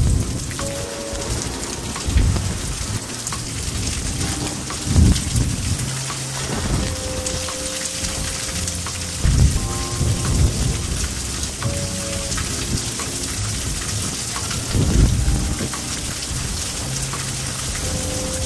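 Heavy rain falling steadily, with low rolls of thunder swelling up several times.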